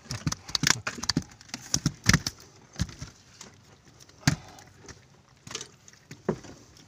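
Irregular sharp clicks and knocks as fish and netting are handled on a boat deck, with the loudest knocks about two seconds in and about four seconds in.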